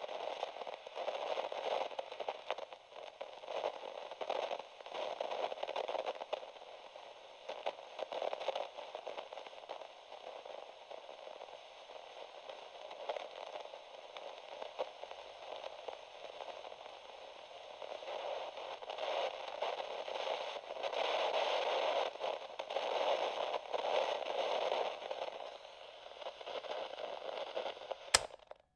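Crackling, static-like noise that swells and eases, ending in a single sharp click just before it cuts off near the end.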